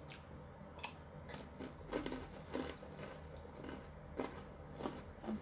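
A person eating cucumber salad by hand: chewing and biting, with scattered sharp clicks and a few short, faint mouth sounds.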